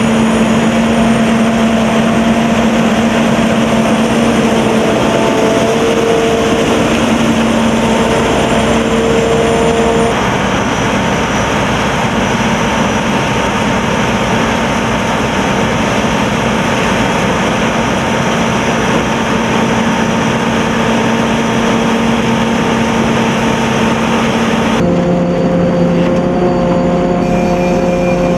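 Corn combine harvester running steadily at work, its engine note over a dense noise of machinery. The sound changes abruptly about ten seconds in and again near the end, where the engine note drops lower.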